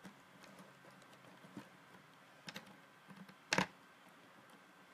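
Felt-tip markers being picked up and set down on the table as they are sorted into rainbow order: a few light clicks and taps, with one louder clack about three and a half seconds in.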